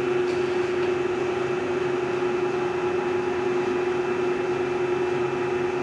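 Hardinge HLV-EV tool room lathe running with a steady, even hum: one constant held tone over a smooth noise.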